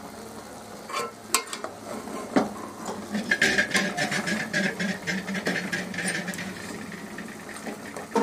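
A metal spoon stirs and scrapes mutton pieces frying in oil in a metal pot, over a steady sizzle. There are a few knocks of the spoon against the pot early on, then rapid scraping from about three seconds in.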